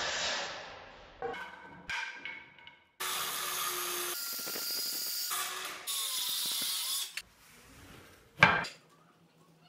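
DeWalt circular saw cutting solid birch boards in two stretches: the first fades out about a second in, and the second runs for about four seconds as a mitre cut is made in a jig. Near the end there is a single loud knock.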